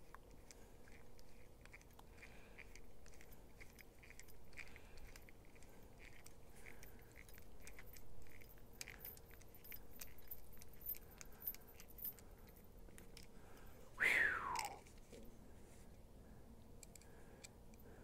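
Faint clicks and light scraping of a screwdriver bit turning a folding knife's pivot screw, with the knife handled in the hands. About fourteen seconds in comes one brief squeak falling in pitch, the loudest sound.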